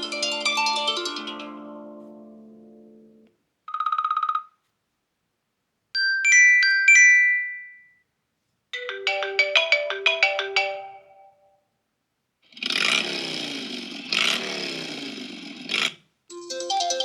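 iPhone 15 Pro ringtones and alert tones played one after another, each a few seconds long with silence between them. They are a falling chime, a brief single beep, a few bright bell-like notes, a quick run of plucked notes, a swirling tone with falling sweeps, and the start of another melody near the end.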